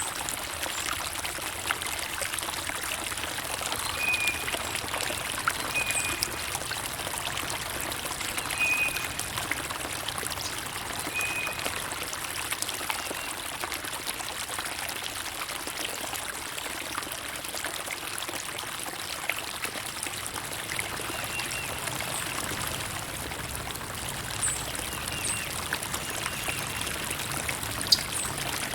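Water trickling and splashing steadily, like a small stream, with short bird chirps now and then over it.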